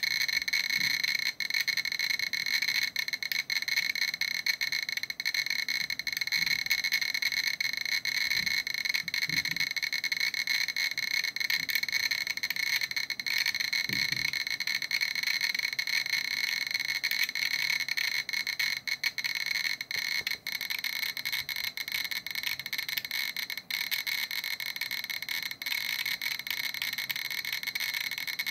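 GQ GMC Geiger counter clicking in a dense, rapid crackle of about 45 counts a second (roughly 2,600 to 2,700 counts per minute), as it detects gamma radiation from a uranium-238 metal sample.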